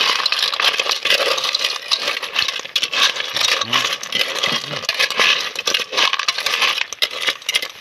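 Sea snail shells clattering against one another and against a metal cooking pot as they are stirred with a metal spoon: dense, rapid clinking.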